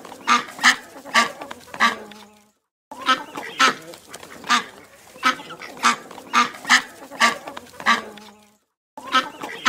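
Goose honking over and over, one loud honk about every half second. The run breaks off twice into dead silence for about half a second, as an edited-in sound clip restarts.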